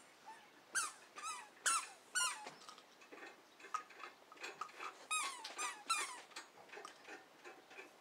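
A series of short, high-pitched animal calls, each falling in pitch, in two bunches, with light ticking between and after them.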